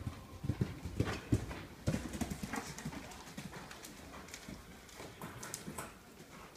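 Horse's hooves striking the sand footing of an indoor arena at a canter, a run of low thuds that are loudest in the first couple of seconds.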